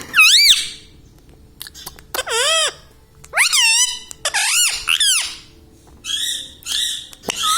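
An Indian ringneck parakeet gives a string of about seven short, loud, high-pitched calls with short gaps between them. Each call arches up and then down in pitch.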